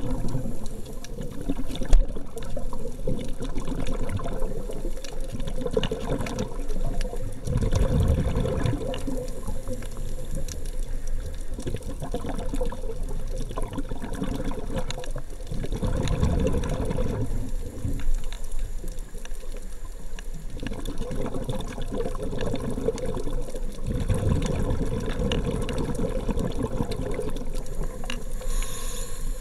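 Underwater ambience picked up through a compact camera's waterproof housing: a steady muffled water noise with faint clicks, and low surges that come and go about every eight seconds.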